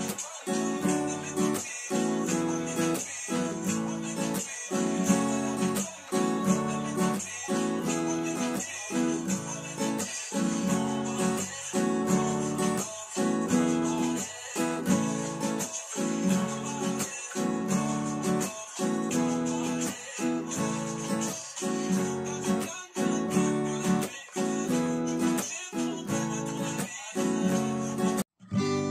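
Acoustic guitar with a capo at the second fret, strummed through a repeating Em, C, D, G chord progression in an even down-up pattern with muted percussive strokes between the chords. The playing breaks off for an instant near the end.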